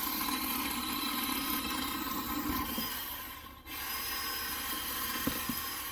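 Craftsman 10-inch 20-volt battery chainsaw running and cutting through a small log, a steady whine with the chain in the wood. It drops off briefly about three and a half seconds in, then cuts on.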